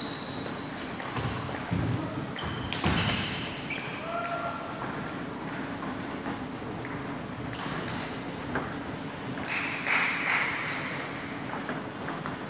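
Table tennis balls clicking off bats and tables in a large hall, an irregular run of short sharp ticks. A few brief high squeaks are mixed in.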